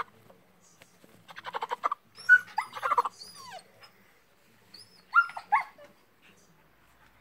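Dog whimpering and yipping in three bursts of high calls that bend up and down in pitch, the first a quick rattling run, with quiet gaps between.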